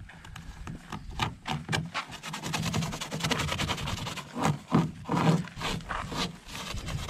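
Hand sanding of a polyethylene canoe hull with a sanding pad, a rapid back-and-forth rasping scrape as the gouged spot is roughed up for an epoxy patch.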